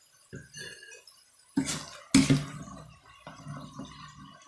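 Metal skimmer knocking and scraping against a frying pan as it stirs and lifts French fries in hot oil: several clatters, the loudest two close together about two seconds in, over a faint sizzle of frying oil.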